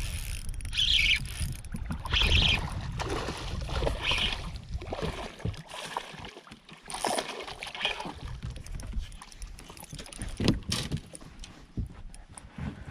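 A hooked smallmouth bass being played and landed beside a boat: water splashing and sloshing as the fish thrashes at the surface, with sharp splashes or knocks at about 7 and 10 seconds. Wind rumbles on the microphone throughout.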